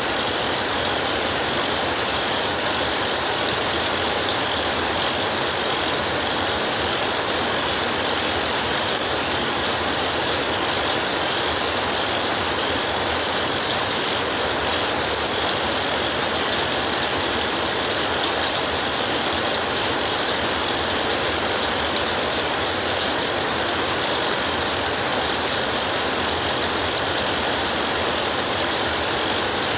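Heavy rain falling, a dense, steady hiss of countless drops at an even level throughout.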